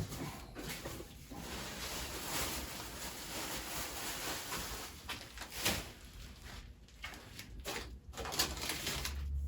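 Plastic wrapping and packing paper rustling and crinkling in irregular handfuls as a new wood lathe is unwrapped, with a few short knocks, the sharpest about halfway through.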